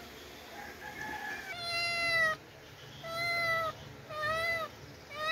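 A pet's drawn-out cries: one faint, then four clear ones roughly a second apart, each rising then falling in pitch, as the animal begs for the sardine-and-rice food being mixed.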